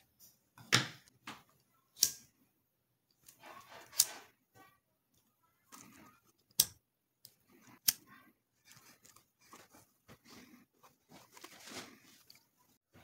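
Scissors snipping stitching thread, then scattered sharp clicks and soft rustling as a stitched leather knife sheath is handled.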